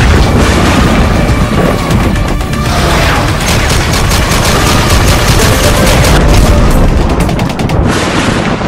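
Action sound effects over music: explosion booms, then rapid machine-gun fire from about three seconds in to near the end.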